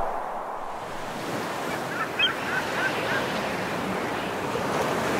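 Steady rushing noise of waves, with a bird calling about five times in quick succession about two seconds in.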